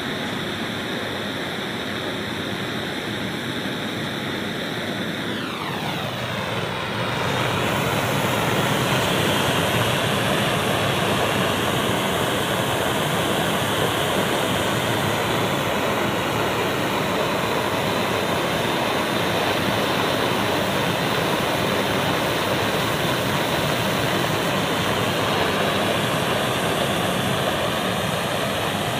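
Clayton & Lambert Model 238 pressurised gasoline blowtorch burning with a steady hiss. It grows louder about six seconds in, with a brief falling swoosh, then holds even.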